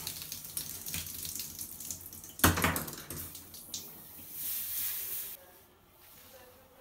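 Liquid spraying and splashing into a bathtub, in two bursts: one already running and a second starting suddenly about two and a half seconds in. It ends in a hiss that cuts off abruptly about five and a half seconds in.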